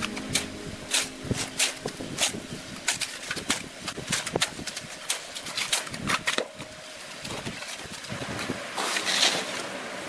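Steel mason's trowel working cement mortar: irregular sharp clicks and taps of the blade, a few a second, with a longer scrape near the end.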